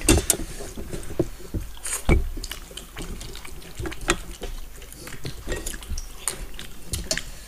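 Close-miked wet hand-eating sounds: fingers squelching through curry-soaked rice and picking at fish heads on steel plates, with mouths chewing. Scattered small clicks and smacks, one louder about two seconds in.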